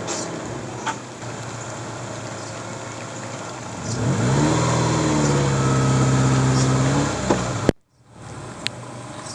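Subaru Forester's flat-four engine straining under load on a rock climb. About four seconds in the revs rise and hold high for about three seconds, then the sound cuts off abruptly. A quieter rumble with a few ticks follows.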